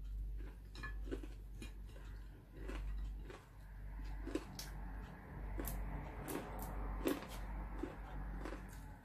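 A person chewing and eating with their fingers: irregular wet mouth clicks and smacks, a few a second, over a steady low hum.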